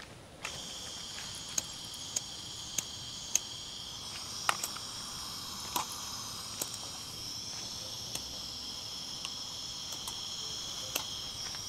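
Crickets chirring steadily, with about a dozen sharp clicks over it, quick at first and then further apart: a lighter being struck again and again without catching.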